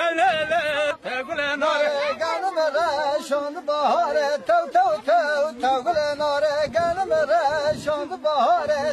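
A man singing a Kurdish folk song in a continuous line with heavy, rapidly wavering ornaments on each note.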